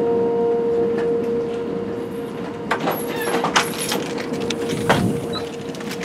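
Outdoor warning siren holding one steady tone, its loudness slowly swelling and fading. A cluster of sharp clicks and rattles comes around three seconds in, and a single knock near five seconds.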